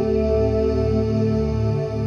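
Ambient new-age meditation music: sustained steady tones held over low notes that shift slowly.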